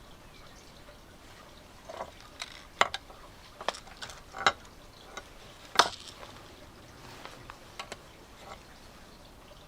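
Irregular sharp clicks and clinks of small metal tools and parts being handled, a few louder knocks among them, starting about two seconds in and fading out near the end.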